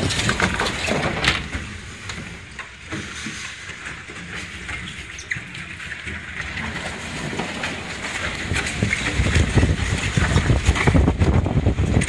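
Strong gusting wind buffeting the microphone in a windstorm, easing off for a few seconds and then picking up again in loud gusts near the end.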